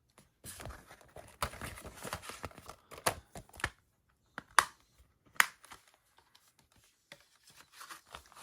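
Paper and packaging rustling and crinkling as they are handled for a few seconds. Then come a handful of separate sharp clicks or taps, the loudest a little past halfway.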